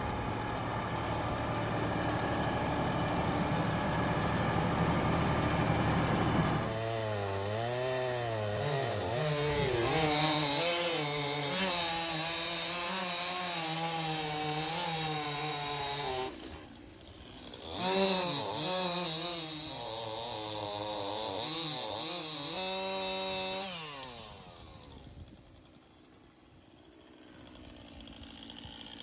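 Portable band sawmill's gas engine running, steady at first, then wavering up and down in pitch as the blade works through a log; the sound falls away near the end.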